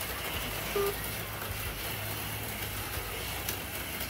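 HO-scale slot cars running laps on the track, a steady whir of their small electric motors over a low hum, with a short beep about a second in.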